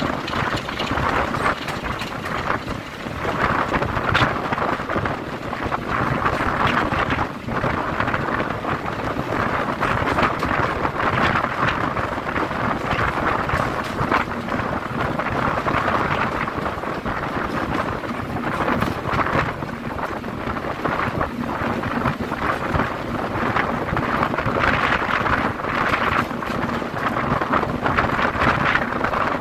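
Wind rushing and buffeting over a microphone held out of a moving train, swelling and easing every few seconds, over the running of the Class 33 diesel locomotive and its wheels on the rails.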